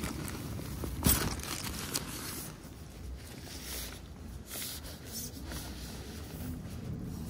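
Rustling and scraping of a fabric gear bag being handled, in irregular bursts, with one sharp click about a second in.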